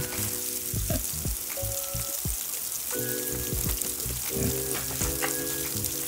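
Water from a garden hose pouring and spattering into a pig's water tub, a steady splashing. Background music with sustained chords comes and goes in phrases of about a second.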